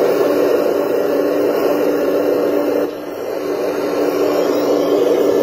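Radio-controlled model excavator's motor running with a steady whine while the arm and bucket work; it drops briefly about three seconds in, then builds back up.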